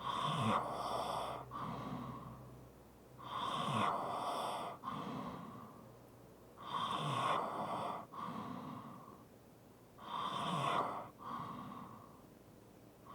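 A person breathing heavily and snoring lightly in a slow, steady rhythm: four deep breaths about three and a half seconds apart, each a louder breath falling away into a quieter one.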